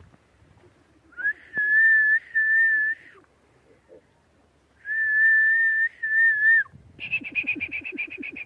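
A person whistling two long, steady high notes of about two seconds each, with a slight dip at the end of each. Near the end comes a rapid pulsing sound, about eight pulses a second.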